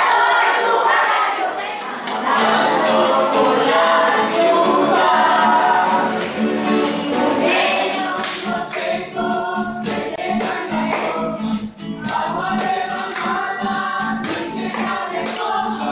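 A group of children singing together, with a steady rhythmic accompaniment of short strokes under the voices.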